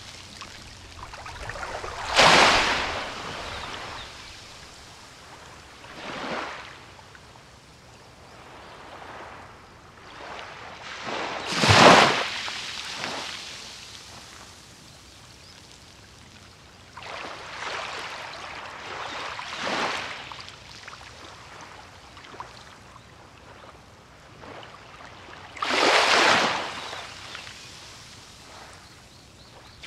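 Small sea waves breaking and washing up a beach. Each wash is a hiss that swells and fades over a second or two, coming at uneven intervals, with three much louder breaks about two seconds in, near the middle, and a few seconds before the end.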